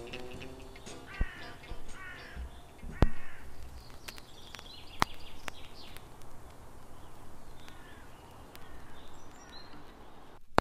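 Outdoor ambience with birds calling, a run of harsh calls in the first few seconds and fainter high chirps after. A few sharp knocks stand out, the loudest about three seconds in. The sound cuts off abruptly just before the end.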